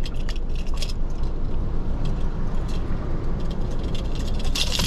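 A boat's engine idling with a steady low rumble, with a few light clicks and clinks from a lure and hooks being handled.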